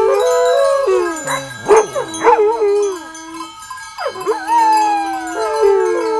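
Trâmbița, a long Romanian shepherd's horn, holds steady notes while dogs howl along in rising and falling wails, loudest about two seconds in, with another long falling howl at about four seconds.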